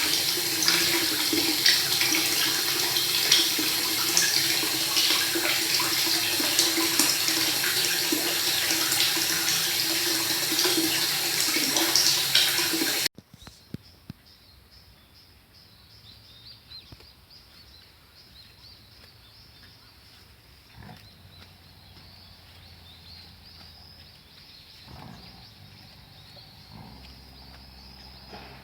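Water running hard and steadily from a tap for about thirteen seconds, then cutting off suddenly. A quiet background with faint high chirping, typical of birds, follows.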